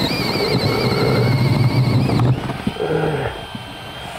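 Cordless drill boring a spade bit through thick wooden wall boards, the motor running steadily under load for about two seconds, then going quieter and dropping in pitch as it eases off.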